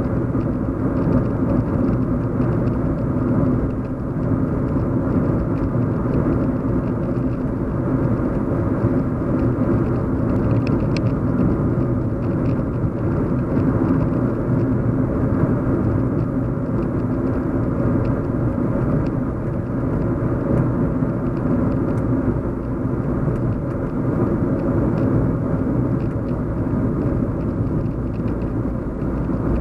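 Steady low road and engine hum inside a moving car's cabin, with a constant drone and no changes in speed.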